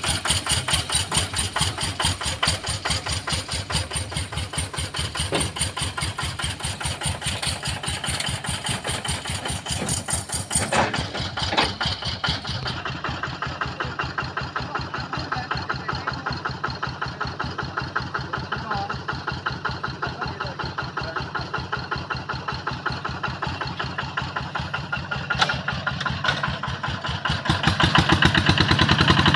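Engine of a Quick QH-11 combine harvester running with a fast, even chugging beat. It gets louder in the last couple of seconds.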